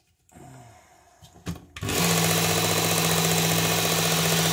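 Work Sharp Ken Onion sharpener with its blade grinding attachment switched on about two seconds in, its motor and belt then running steadily. Before that, faint handling noises and a click as the medium belt is set up.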